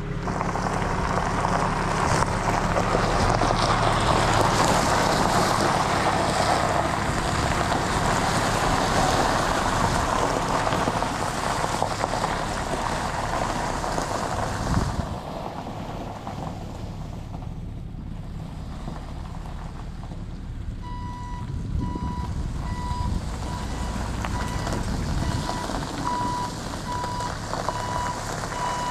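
Tow truck engine running loudly while manoeuvring with a long load, easing off about halfway. The truck's reversing alarm starts beeping steadily about two-thirds of the way in, about one beep a second.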